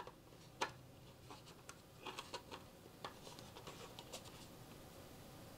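Faint clicks and light scraping of hard 3D-printed plastic parts, an engine nacelle and its mounting piece, being handled and fitted together: one sharper click about half a second in, then a scatter of small ticks.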